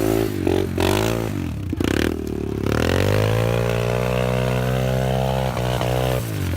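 Vehicle engine revving, its pitch swinging up and down several times, dipping briefly about two seconds in, then climbing and holding before easing off near the end.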